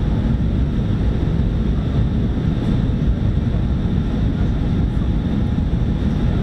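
Steady low rumble and rushing of cabin noise inside an Airbus A319 in flight, from its jet engines and the air streaming past the fuselage.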